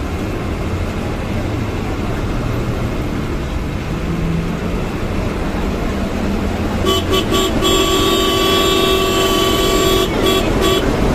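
Bus engine and road noise on a moving KSRTC bus. About seven seconds in, a vehicle horn sounds several short toots, then one long blast of about two seconds, then two more short toots.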